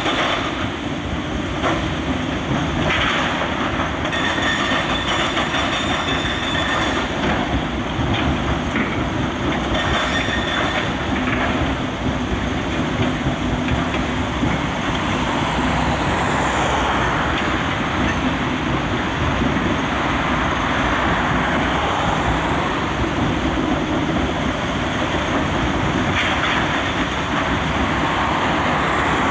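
Rock-crushing site at work: a Komatsu PC360LC excavator's diesel engine and hydraulics running beside a mobile jaw crusher, a steady rumble with rattling of rock. A higher whine comes and goes a few times in the first half.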